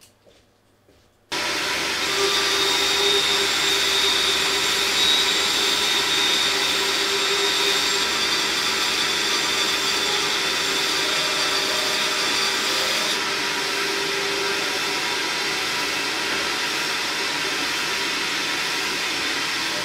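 Einhell bench band saw running and cutting a thin strip of wood: a steady motor and blade noise with a constant whine in it, starting abruptly about a second in.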